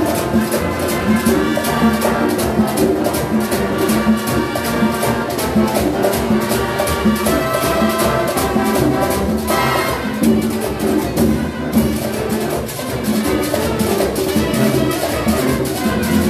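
Latin big band playing live: brass section over a steady, busy percussion rhythm, in a salsa style. The high percussion drops out briefly about ten seconds in, then comes back.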